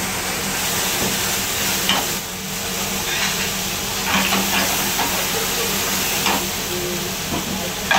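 Food sizzling and frying in a pan over a high gas flame while it is flambéed: a steady hiss over a low hum.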